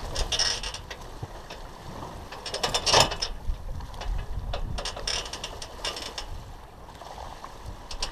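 Wind and water rushing past a sailboat under way, picked up by a deck-mounted GoPro. The rush comes in irregular surges, loudest about three seconds in and again near five seconds, with a fine rattle in the louder surges.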